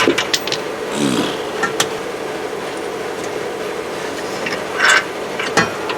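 Hand tools working on bolts under a car: a few sharp metallic clicks and scrapes, and a short rasping burst about five seconds in, over a steady hum.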